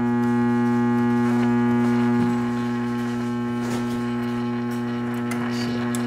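A 1956 GE P-720 AM transistor radio's speaker gives out a loud, steady hum with a buzzy edge. The hum comes from running the set off a mains-powered universal supply in place of its batteries. A faint station comes and goes beneath it as the radio is tuned.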